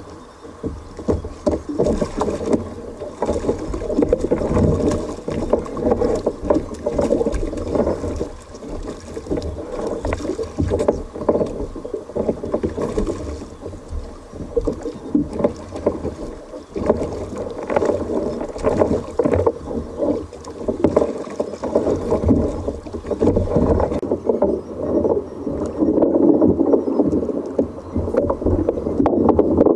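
Seawater sloshing and splashing against a fishing kayak's hull in a swell, irregular and continuous.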